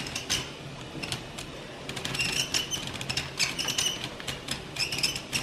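Plastic gears and parts of a VEX Robotics Forklift Ball Machine toy clicking and rattling irregularly as its hand crank is turned. A few short high chirps sound between the clicks.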